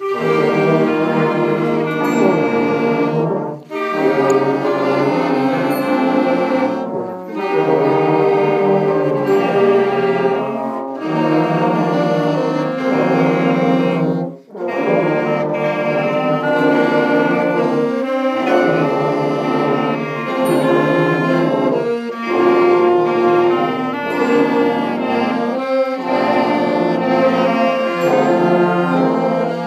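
School wind band of flutes, saxophones and brass playing a slow piece together in held chords. The phrases break for a short breath about every three to four seconds.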